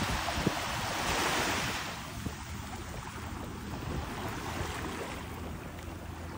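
Wind buffeting the microphone over the wash of sea surf, a steady rushing noise that is strongest for the first two seconds and then eases off.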